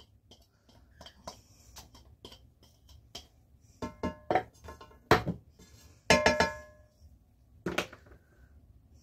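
A glass container and a spatula knocking, scraping and clinking against a frying pan as chopped vegetables are tipped out, a few of the knocks ringing briefly.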